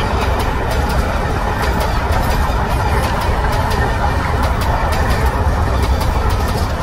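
Maharajas' Express passenger coaches rolling along the track, a steady low rumble with scattered sharp clicks from the wheels and rails.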